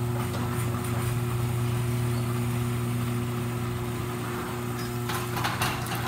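Electric garage door opener running with a steady hum as it drives the sectional door down its tracks to close. A few knocks near the end as the door reaches the floor.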